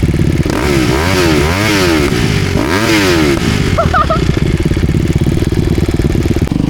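Dirt bike engine running hard, revved up and down several times in the first few seconds, then held at a steadier pitch.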